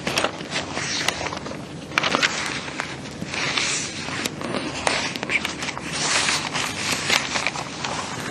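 Sheets of paper rustling and crackling as pages are shuffled and turned over, close to a clip-on microphone, with many sharp crinkles.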